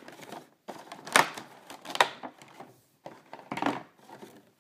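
Clear plastic blister packaging being handled, with a few sharp clicks and knocks and some rustling between them.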